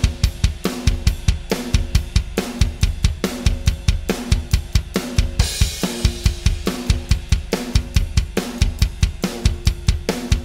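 EZdrummer 2 software drum samples, triggered from an electronic drum kit, playing a steady beat of kick, snare and cymbals.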